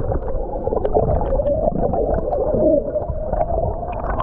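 Water rushing and gurgling, heard heavily muffled, with wavering warbling tones over a dense low rumble.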